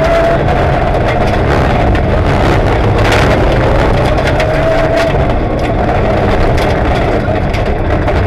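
Rally car engine working hard, heard from inside the cabin, its note rising and falling with the throttle on a gravel stage. Stones and gravel tick and rattle against the car throughout.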